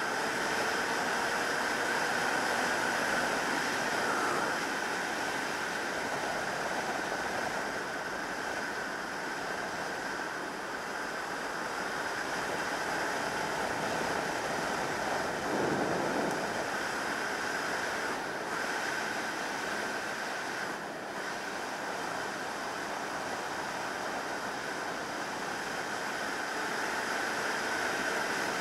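Steady wind rush buffeting the microphone of a moving motorcycle, a 2003 Yamaha YZF600R Thundercat at cruising speed, with the engine's hum faint beneath it. A brief swell about halfway through.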